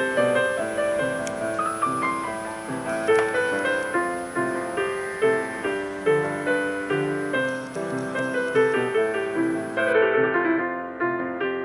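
Background piano music, a steady run of struck notes, turning duller about ten seconds in as the high end drops away.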